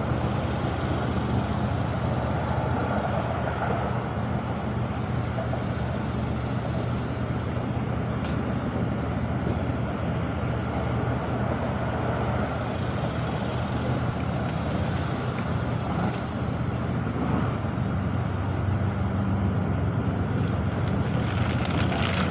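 Steady motor-vehicle noise: an engine running with a continuous low hum amid road traffic.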